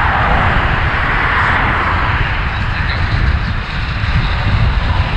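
Wind rushing over the microphone of a road cyclist riding at speed, a steady low buffeting with a hiss of tyres and air on top that is strongest in the first couple of seconds.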